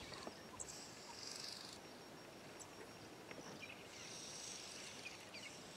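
Faint bush ambience: a high hiss that swells twice, with scattered small chirps.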